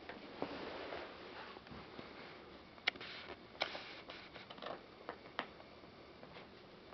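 Miniature dachshund gnawing on a chew, with scattered sharp clicks of teeth against it, the loudest about three seconds in, and soft snuffling and rustling between them.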